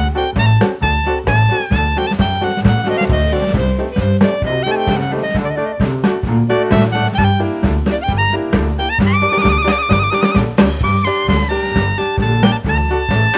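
Upbeat jazz background music. A horn carries the melody over bass and drums with a steady beat, and holds one long wavering note about nine seconds in.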